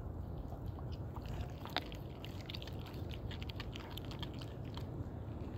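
Dog chewing raw chicken, a string of wet crunches and clicks from about a second in, over a steady low rumble.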